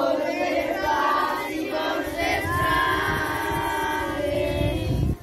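A group of young boys singing together in unison, many voices on held notes, which breaks off abruptly near the end.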